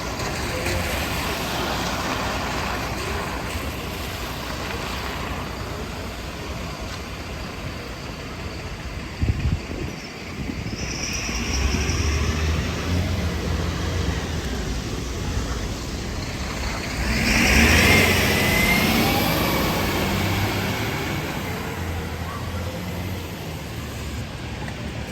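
City street traffic: road vehicles running and passing close by, the loudest pass coming about two-thirds of the way in. There are a couple of brief thumps about nine seconds in.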